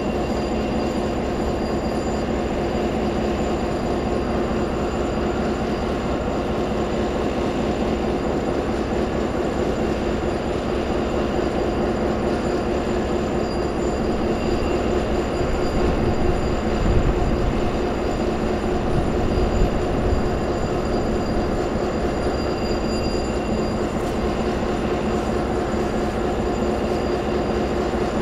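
BNSF road diesel locomotives running at idle as their engines are restarted, a steady hum with a faint whine over it. A deeper low rumble swells briefly about two-thirds of the way through.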